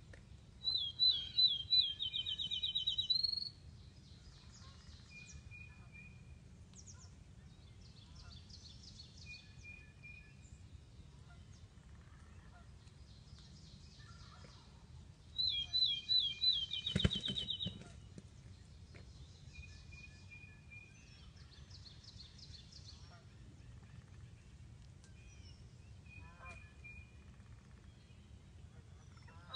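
Outdoor birdsong. A nearby songbird sings a loud run of about ten quick downward-slurred whistles twice, once about a second in and again about halfway through. Fainter birds call and trill in the background. A single sharp knock comes during the second song.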